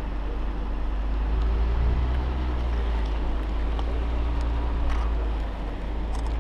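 Wind buffeting a camera microphone held out of a moving car's open window, with the car's engine and tyre noise on the road underneath.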